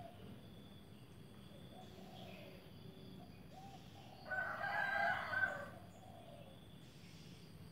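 A rooster crowing once, a single loud call of about a second and a half starting about four seconds in.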